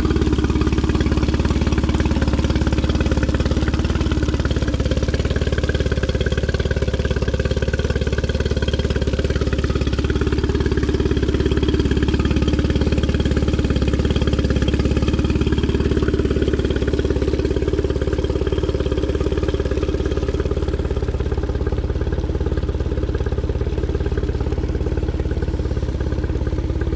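Mercury 15 HP EFI two-cylinder four-stroke outboard idling steadily in neutral out of the water on flushing earmuffs, with cooling water gushing out around the lower unit and splashing onto pavement.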